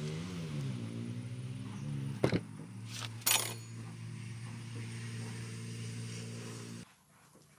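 Light metallic clinks, twice around the middle, as a chrome urinal flush-valve fitting is handled and fitted onto its wall pipe, over a steady low drone that cuts off suddenly near the end.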